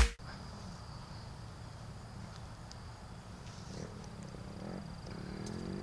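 Faint outdoor ambience: a low steady rumble of wind on the microphone, with a thin steady high-pitched whine above it.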